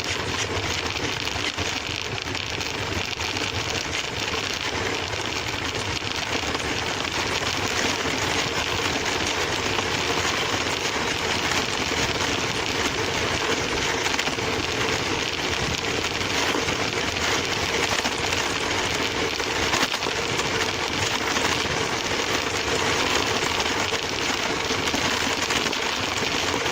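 Remote-control toy car's electric motor and wheels running steadily over the ground, picked up by a camera mounted on the car.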